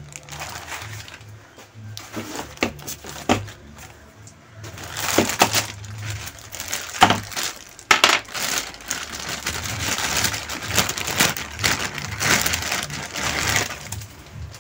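Clear plastic bags crinkling and rustling as parts are unwrapped and handled, with a few light knocks of parts set down on the bench, denser about halfway through.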